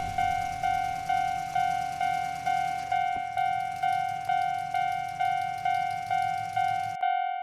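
Railroad crossing alarm bell ringing, a repeated ding a little over twice a second, over a low rumble that stops near the end.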